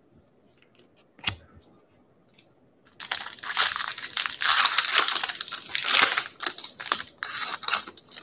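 Foil wrapper of a 2020 Bowman baseball card pack being torn open and crinkled by hand, about five seconds of loud crackling, after a single knock about a second in.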